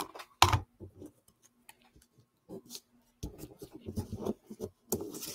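Paper strips being handled and pressed onto a scrapbook page on a tabletop: a knock about half a second in, scattered light ticks, then busier rustling and scraping of paper from about three seconds in.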